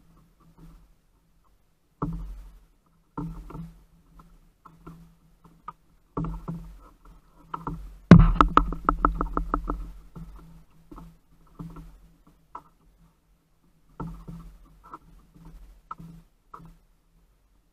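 A conventional fishing reel clicking during the fight with a halibut: a sharp knock about eight seconds in, then a fast run of clicks at about seven a second that fades over two seconds. Scattered knocks and bumps of handling on the kayak come before and after.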